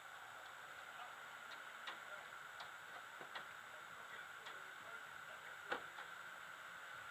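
Faint steady hiss with light, irregular ticks about once a second; the loudest is a sharp click about six seconds in.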